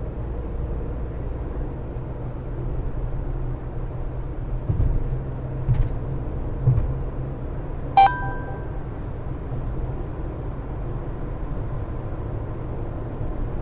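Steady road and engine rumble inside a moving car's cabin, with a few dull thumps near the middle. About eight seconds in comes one sharp clink that rings briefly.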